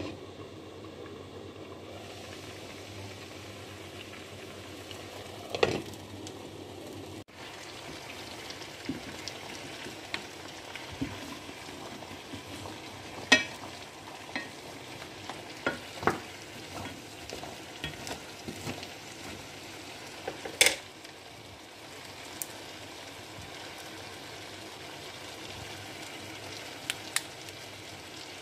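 A stainless pan of peanuts in their shells boiling on the stove, a steady bubbling hiss. Scattered knocks and clicks come as a wooden spatula stirs the shells against the pan, the sharpest about three quarters of the way through.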